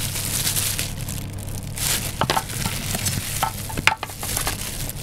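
Crinkling and rustling of disposable plastic gloves handling a string-tied roll of singed mutton on a steel tray, with a few sharp clicks, the loudest about four seconds in.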